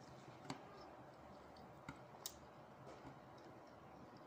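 Quiet eating by hand: a few faint, sharp clicks from eating rice with the fingers, about three in all, two of them close together near the middle.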